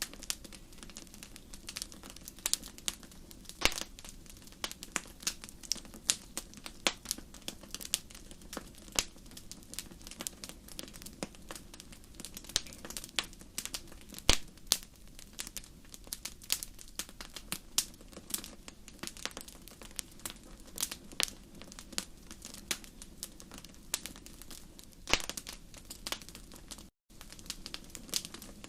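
Wood fire crackling in a fireplace: a steady, irregular run of sharp pops and snaps over a low, even rumble from the burning logs. The sound drops out for a moment near the end.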